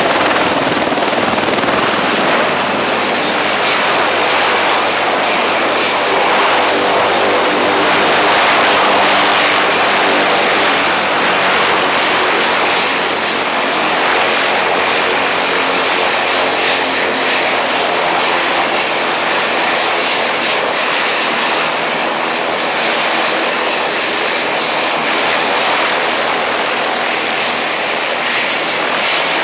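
UH-1Y Venom helicopter running on the ground, its twin turboshaft engines and turning rotor making a steady, loud noise.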